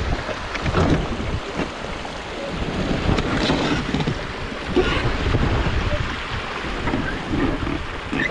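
Water rushing and splashing over a beaver dam, with wind buffeting the microphone.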